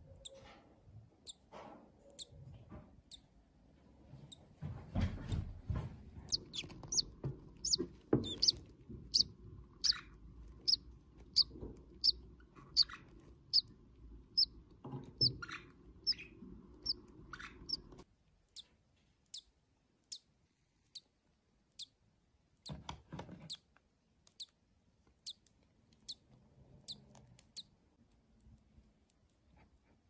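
Newly hatched bird chick peeping: a run of short, high peeps about two a second, loudest in the middle, over a low rumble that cuts off abruptly just past halfway. Fainter peeps go on after it.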